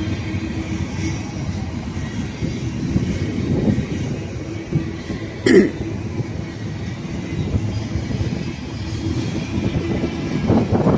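Cars of a BNSF intermodal freight train rolling past, a steady rumble of wheels on rail. A brief loud burst about five and a half seconds in.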